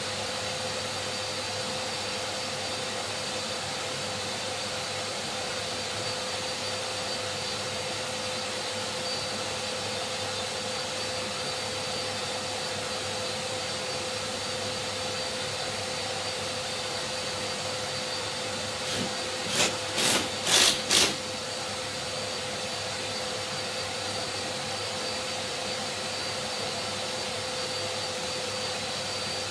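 Workshop vacuum (dust extractor) running steadily, with a quick cluster of four short, louder bursts about two-thirds of the way through.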